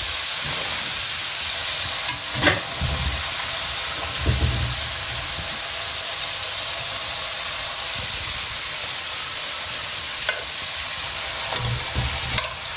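Potato wedges deep-frying in hot oil, a steady sizzle. A wire spider skimmer stirs and lifts them, giving a few light knocks against the pan.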